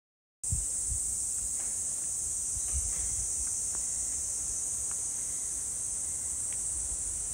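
Steady, high-pitched chorus of insects in a forest, starting abruptly about half a second in, with a low rumble underneath and a few faint short chirps.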